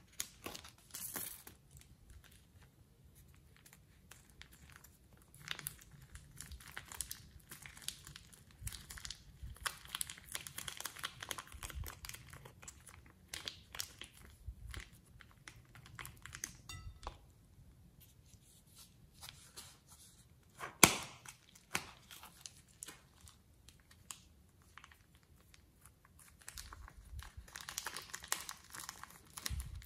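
Foam beads being squeezed out of a plastic piping bag onto slime: the bag crinkles and the beads crackle in irregular clusters of small clicks, with one sharp click about twenty seconds in.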